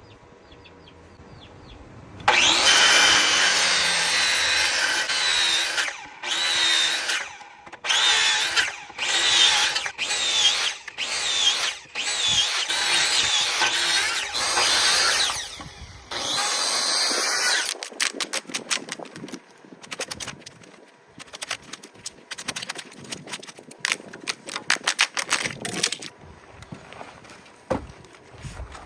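A power tool cuts wood in a series of passes shaping tenons, its motor whine rising and falling under load, with short pauses between passes. After about 18 seconds it gives way to a quick, irregular run of clicks and scrapes from working the wood.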